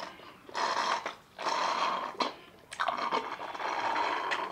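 Slurping through straws from small Frooti mango-drink cartons: noisy sucking in three pulls with short breaks, the last one the longest.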